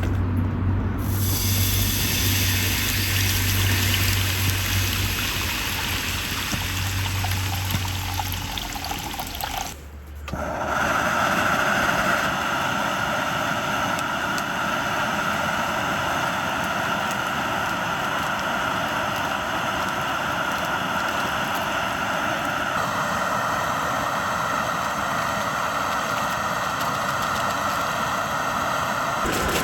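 Stream water rushing steadily, in several cut-together stretches. A low steady hum runs under the water for the first eight seconds or so.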